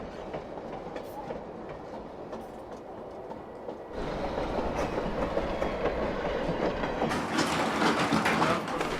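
Flåm Railway train running along the track, a steady rumble and rattle of the moving train. It jumps louder abruptly about four seconds in and turns brighter and hissier near the end.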